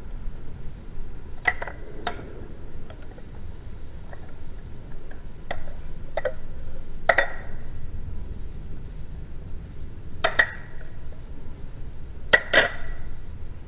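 Balisong (butterfly knife) being flipped, its metal handles and blade clicking and clinking against each other in sharp, irregular single clacks, about eight in all, two of them close together near the end.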